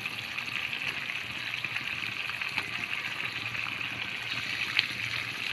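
Onion-tomato curry gravy simmering in a steel pan, a steady sizzling hiss, with a few faint clicks as boiled eggs are set into it.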